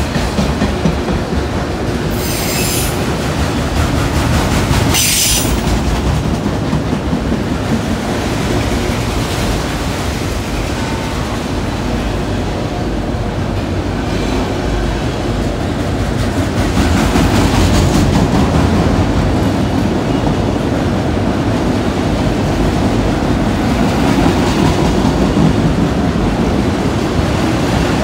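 Freight train of autorack cars rolling past close by at speed: a steady, loud rumble and clatter of steel wheels on rail, a little louder past the middle. Two brief high-pitched wheel squeals come about two and five seconds in.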